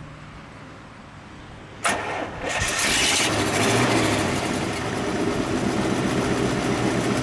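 1941 Cadillac's 346 cubic-inch L-head (flathead) V8 being started: about two seconds in the starter cranks it briefly, the engine catches under a second later and settles into a smooth, steady idle.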